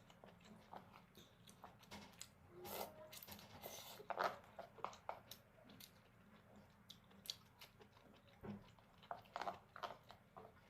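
A person eating jjajangmyeon up close: chewing and biting, with irregular soft clicks and smacks, the loudest just after four seconds in.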